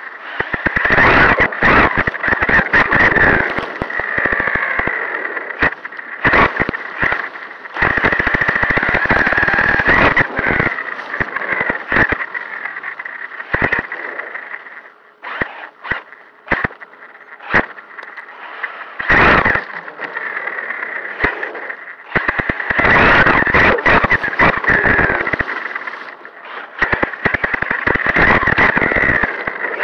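Traxxas Sledge RC monster truck driving over grass and pavement, heard from a camera mounted on the truck: its brushless electric motor and gears whine in repeated bursts of throttle, with many sharp knocks and rattles as the chassis bounces over the ground.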